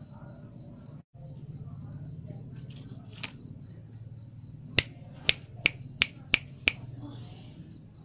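A single sharp click, then six loud sharp snaps in quick succession, about three a second, past the middle. A faint high pulsing trill runs underneath.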